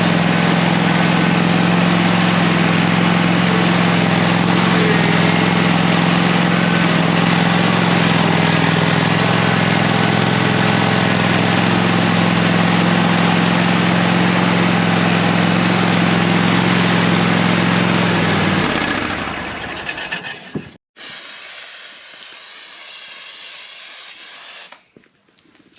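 A small engine running steadily at one constant speed, loud, with a wide noisy hiss over its hum. It dies away about nineteen seconds in, leaving a much quieter hiss.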